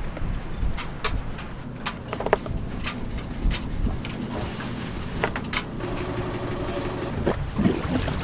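Sailboat's inboard engine idling with a steady low rumble, with scattered sharp clicks and knocks over it.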